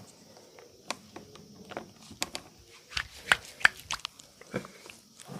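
Irregular sharp slaps and clicks from hands working on a body in a massage and chiropractic session, about eight in a few seconds, the loudest a little past the middle.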